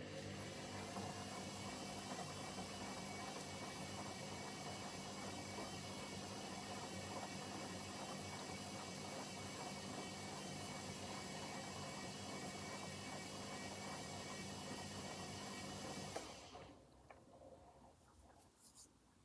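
Hoover H-Wash 300 washing machine running with a steady mechanical hum of several fixed tones for about sixteen seconds, then cutting off suddenly.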